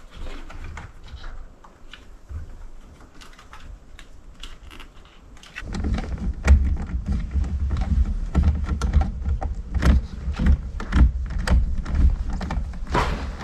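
Light clicks, taps and knocks of hand work on a car steering wheel being fitted. From about halfway through, a louder low rumble with heavier knocks joins them.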